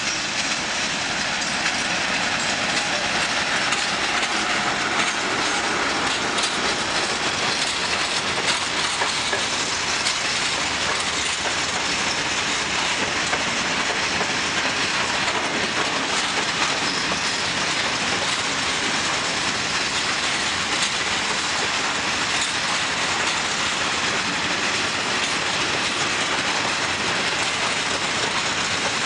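A long freight train of open coal wagons rolling past steadily, its wheels clattering over the rail joints. The sound grows louder over the first couple of seconds as the wagons come alongside, then holds steady.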